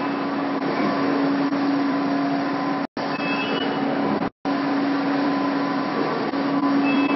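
Nassenger PRO1000 industrial textile inkjet printer running while printing, fabric feeding through its rollers: a steady mechanical din with a constant low hum and a few faint, brief high whines. The sound cuts out completely twice, for a split second each, about three and four seconds in.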